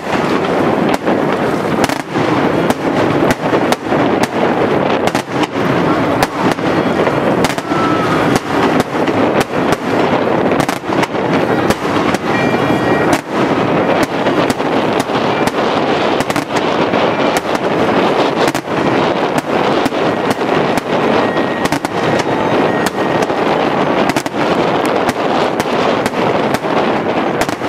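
Daytime fireworks: aerial shells bursting in a dense, unbroken barrage of bangs, many a second, overlapping into a continuous crackling rumble.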